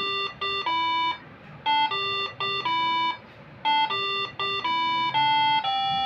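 Moreno Air Horn MS7 melody module sounding a tune of horn notes. The same quick phrase of short notes, each ending on a longer held note, plays three times.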